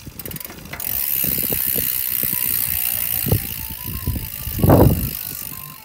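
Mountain bike's rear freewheel hub clicking fast, then buzzing steadily as the rear wheel spins, with scattered knocks and rattles from the bike and one loud thump near the end.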